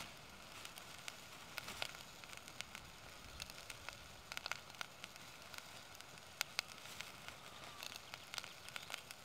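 Onion, pepper and chorizo quietly sizzling in a pot over an alcohol stove, with scattered crackles and pops from the frying. A plastic bag crinkles now and then as it is handled.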